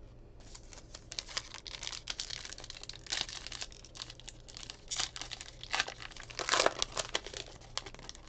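A Topps Heritage baseball card pack wrapper being torn open and crinkled in the hands: a run of crackly rustles, loudest about six and a half seconds in.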